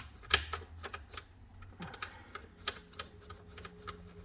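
Irregular sharp clicks and taps of hand tools working the bolts of a car door's lower hinge, the loudest about a third of a second in. A faint steady hum comes in about two seconds in.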